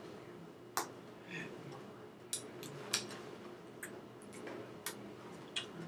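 Irregular soft clicks and taps, about ten of them, made by a person signing with their hands and mouth, over a steady low room hum.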